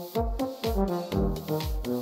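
Euphonium quartet playing in rhythmic chords, the notes moving in short, repeated steps. A low pulse beats about twice a second underneath.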